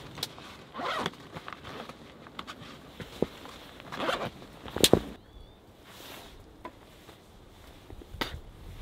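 A backpack's zip being pulled, with two rasping runs about a second and four seconds in and rustling fabric between them. A sharp click follows just before the midpoint, then a few small ticks.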